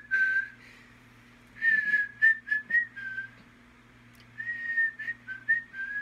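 A woman whistling a tune through pursed lips: short notes stepping up and down, in three phrases with brief pauses between them.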